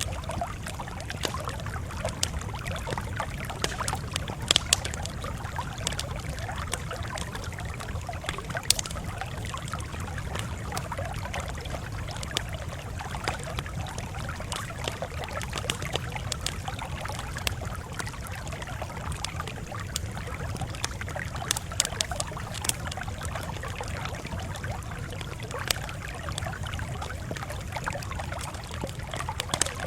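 Campfire crackling, with frequent irregular pops and snaps over a steady low rumble.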